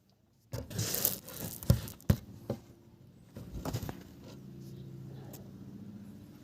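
Rubbing and scraping handling noise with several sharp irregular clicks, starting suddenly about half a second in, then settling into a steady low hum.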